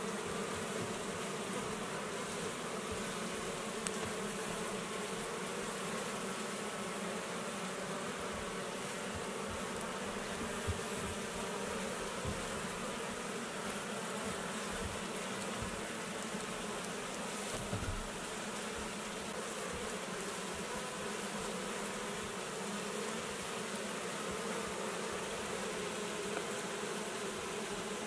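Swarm of honey bees buzzing in a steady, dense hum while a bee package is being hived. There are a few faint low thumps underneath.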